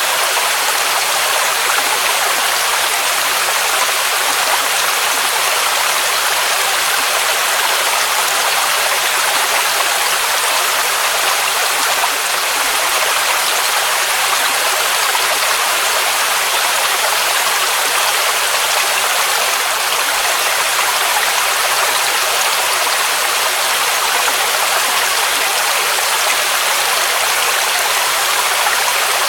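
Waterfall cascade rushing steadily: a constant, hissy rush of falling water with almost no deep rumble.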